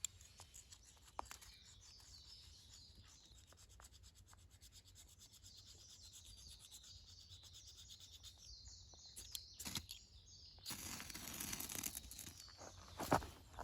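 Scraping and rasping of a campfire being lit, with many small ticks and crackles. A louder burst of scraping comes about eleven seconds in, and a sharp knock near the end.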